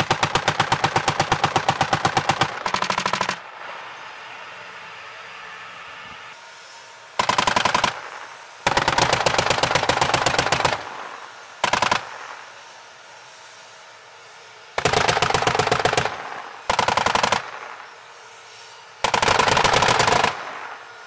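Machine guns firing in about eight bursts of rapid fire. The long bursts run for about two seconds and the short ones for under a second, with pauses of a second or more between them.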